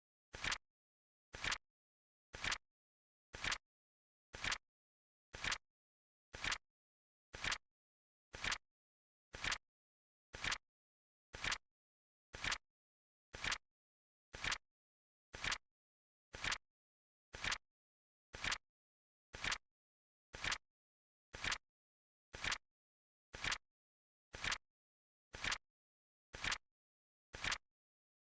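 Flip-clock sound effect: a short, sharp double click once every second as the cards flip, with silence between.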